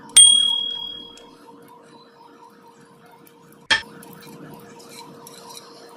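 Steel truck gearbox parts knocking together by hand: a sharp metallic clink that rings briefly, then a second, shorter knock a few seconds later.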